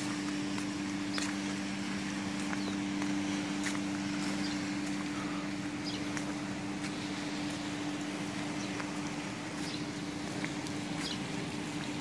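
A steady low machine hum of two even tones under a constant hiss, with scattered short high chirps and clicks.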